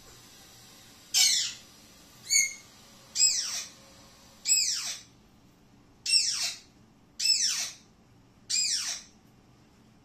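Alexandrine parakeet giving seven loud calls, roughly one a second, each sliding down in pitch; the first two are shorter.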